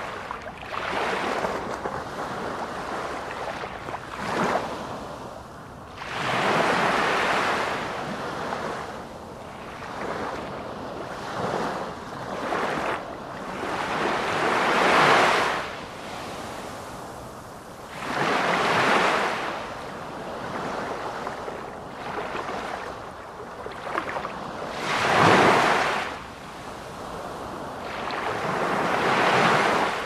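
Sea waves washing over a shallow shore: a rushing hiss of surf that swells and fades again every few seconds, with its loudest surges about halfway through and again near the end.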